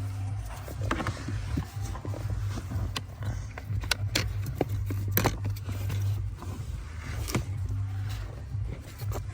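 Scattered clicks and knocks of a plastic accelerator pedal assembly being handled and pushed into place under the dashboard, the sharpest about five and seven and a half seconds in, over a steady low hum.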